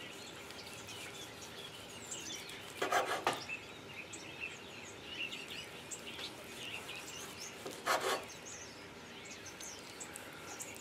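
A large knife sawing through a roasted stuffed pork loin roll and coming down on a wooden cutting board, twice, about three seconds and eight seconds in: each stroke cuts off one slice.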